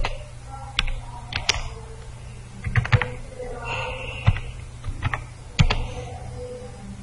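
Typing on a computer keyboard: irregular keystrokes, some in quick clusters of two or three, over a steady low hum.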